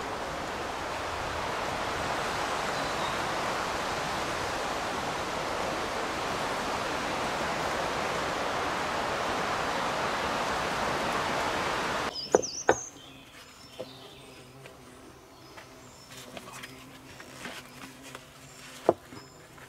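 A steady rushing noise that cuts off suddenly about twelve seconds in. After it, quiet outdoor ambience with a few sharp knocks of heavy stones being set into a dug pit.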